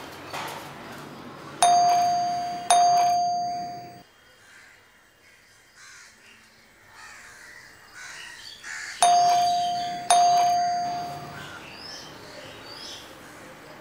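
Doorbell chiming, rung twice. Each ring is two bright strikes on the same note about a second apart, each fading away. The first ring comes about one and a half seconds in, the second about nine seconds in.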